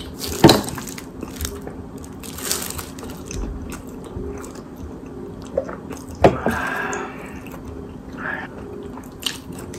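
Drinking beer from a can, then chewing and crunching seasoned fried chicken, with a few sharp clicks and taps.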